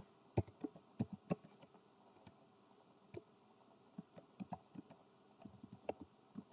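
Faint computer keyboard typing: scattered single keystrokes in small, irregular clusters as text is deleted and retyped.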